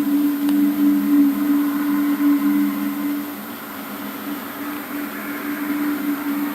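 A steady low droning hum in two close tones, easing off about halfway through and swelling again near the end. It is one of the unexplained 'strange sounds' reported as heard from the sky.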